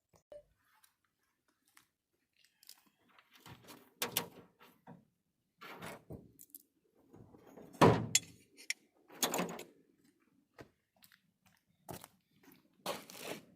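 Irregular knocks, clicks and clinks of light bar mounting brackets, hardware and hand tools being handled. The loudest is a sharp knock about eight seconds in.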